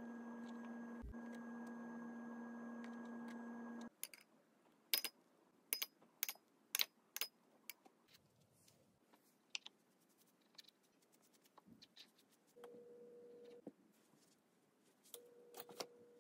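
A steady hum with several fixed tones that cuts off abruptly about four seconds in. Then a run of sharp clicks and taps, with a faint steady tone returning briefly twice near the end.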